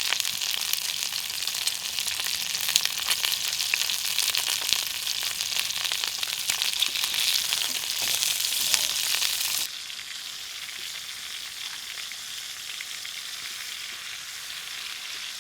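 Food frying in a small frying pan, a dense sizzle with lots of spitting crackles. About ten seconds in it drops suddenly to a quieter, steady sizzle.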